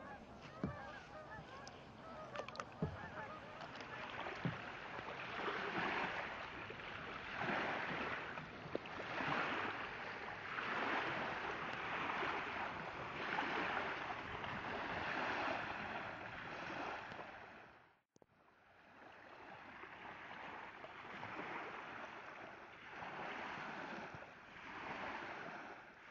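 Geese honking in the first few seconds, then water swishing in repeated swells about every one and a half seconds. The water sound cuts out for an instant about eighteen seconds in, then carries on.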